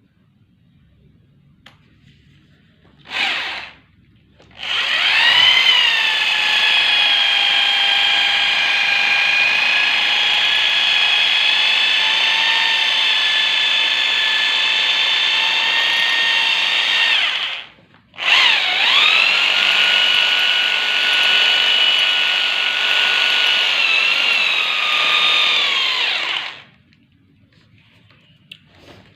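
Concrete drill running in two long runs, a steady high whine that dips in pitch as each run starts; a short blip of the drill comes a few seconds before the first run, and the two runs are split by a stop of under a second.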